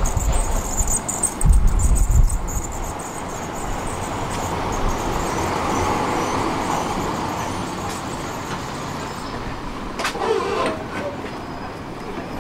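Tram running along the tracks, heard from inside the car, a steady rumble and rolling noise that swells a little mid-way. Deep thuds from the wheels come twice near the start, and there is a sharp click about ten seconds in.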